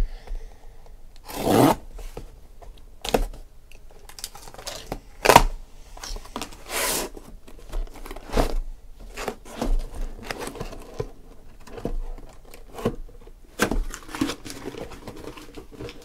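Corrugated cardboard case being opened: packing tape slit and ripped, flaps pulled and scraped apart, with loud tearing rips about a second and a half in and again around five to seven seconds in. Then shorter knocks and rubs as cardboard boxes are handled and set down.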